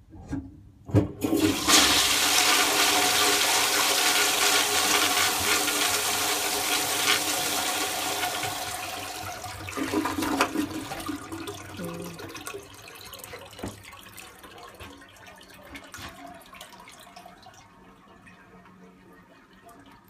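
Vintage Standard Ejecto forward-trap toilet flushing a bowlful of leaves: a couple of clunks about a second in, then a loud rush of water that clears the bowl, a second surge about ten seconds in, and water running more and more quietly as the bowl refills.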